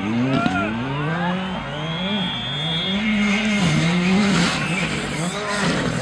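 Rally car engine at high revs, the pitch climbing and dropping several times as the car accelerates and lifts off through the stage. A thin squeal of tyres runs for about a second, about two seconds in.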